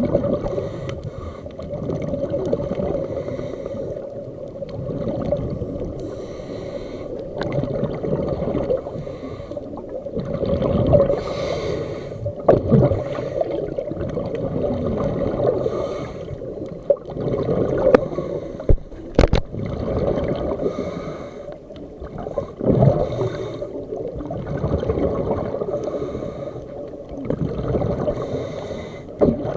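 Scuba breathing heard underwater: a regulator hissing on each inhale and bubbles gurgling out on each exhale, in slow repeated cycles over a low rumble. A couple of sharp clicks come a little past the middle.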